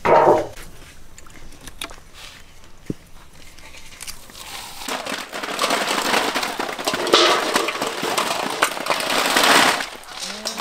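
Snail shells clattering and crackling as they are handled in metal basins: scattered clicks at first, then a dense, loud run of clattering from about five seconds in until near the end.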